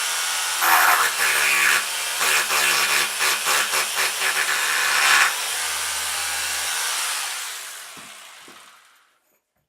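Power drill-driver running while driving screws into wood, revved in short surges for a few seconds, then running steadily before fading out near the end.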